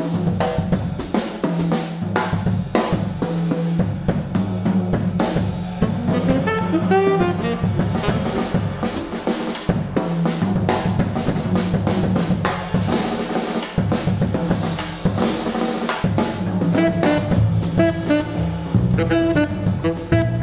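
Jazz drum kit solo: busy snare, bass drum, tom and cymbal strokes, with the saxophone coming back in near the end.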